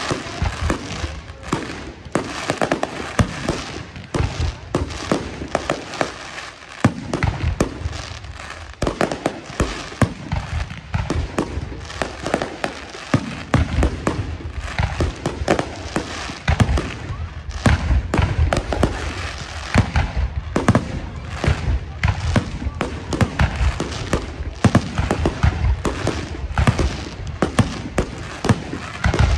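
Fireworks display: many aerial shells bursting in a dense, unbroken run of bangs and crackles with deep booms.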